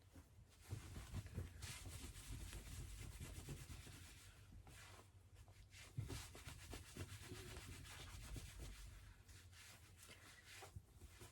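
Faint rubbing and rustling in two stretches, with a short break about halfway through.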